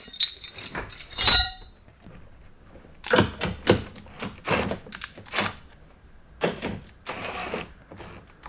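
Cordless impact driver run in several short bursts, rattling as it hammers a door-latch striker bolt tight. A sharp metal clink comes about a second in.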